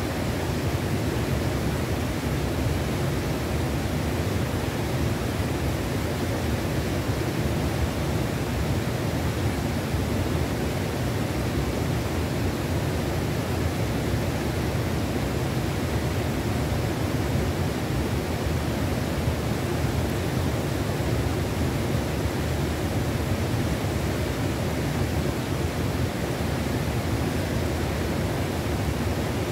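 Flowing river water: a steady, unbroken rush.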